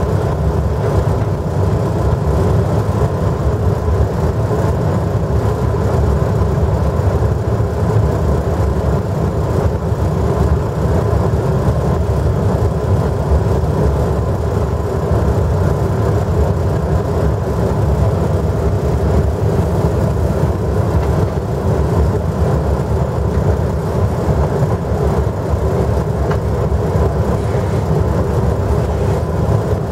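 DB Class 103 electric locomotive heard from inside its driver's cab while running: a loud, steady low rumble with a constant hum over it.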